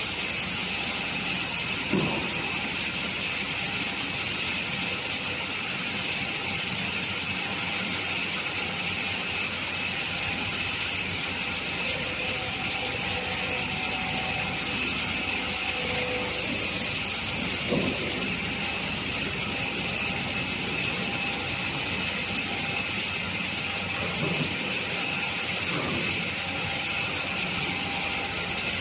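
Double beam panel saw running, a steady machine noise with a high, even whine from its spinning blade and motor. A few brief lower sweeping sounds rise and fall about two seconds in, near the middle and near the end.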